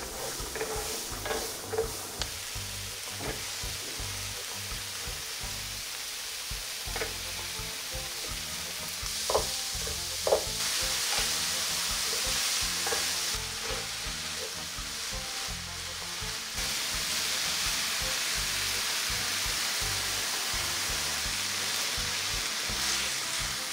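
Diced onion and ground meat sizzling in a nonstick frying pan while being stirred with a wooden spatula. The sizzling grows louder about nine seconds in, with a couple of sharp taps of the spatula against the pan.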